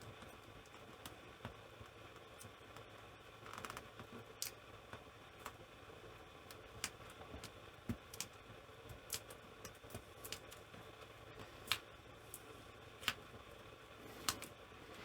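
Irregular, sharp little clicks and snaps of plastic parts being pulled and pried apart during a laptop keyboard removal, about a dozen scattered over a faint steady hiss.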